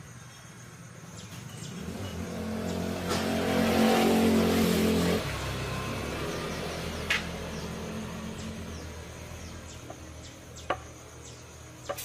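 A motor vehicle passes by: its pitched running sound swells over a few seconds, drops off suddenly and fades away. Birds chirp briefly afterwards.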